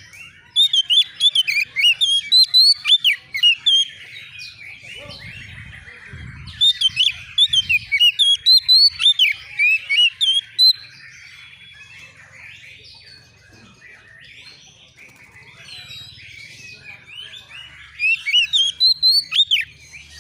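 Oriental magpie-robin singing: three loud bursts of rapid, varied whistled notes, with softer chattering between the bursts. This is an excited, rival-answering song.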